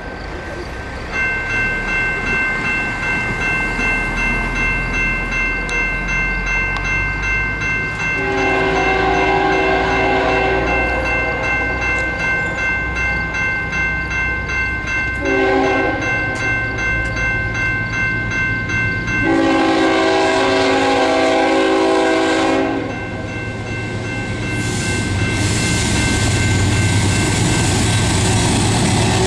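Level-crossing warning bell starts ringing about a second in and rings on steadily while an approaching CN freight's diesel locomotive sounds its multi-note horn for the crossing: a long blast, a short one, then another long one. Near the end the low rumble of the train grows as it nears.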